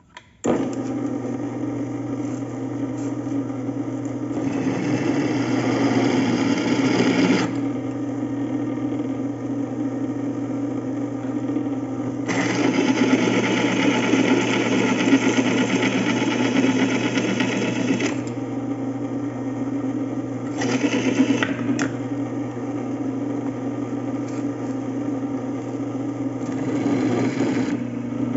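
Bench drill press running with a 12 mm bit, drilling out the head of the rivet that holds a ball joint in a lower control arm. The motor hums steadily after starting just after the beginning, and there are several stretches of louder grinding noise as the bit bites into the rivet.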